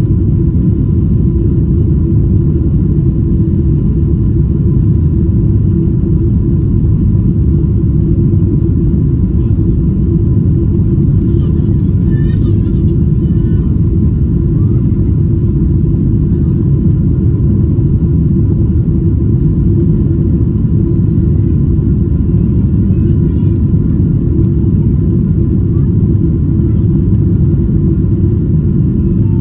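Boeing 777-200ER cabin noise: a steady, loud rumble of engine and airflow noise heard from inside the passenger cabin, with a faint constant hum.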